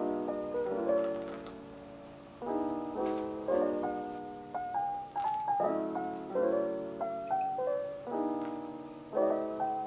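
Background music: a soft, slow lo-fi piano piece, with chords struck about once a second and left to fade.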